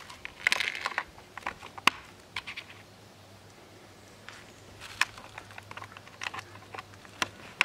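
Irregular plastic clicks and scrapes as a battery is fitted into the battery compartment of a Parkside auto-darkening welding helmet's filter cartridge, with a sharp click about two seconds in and several more around five to seven seconds.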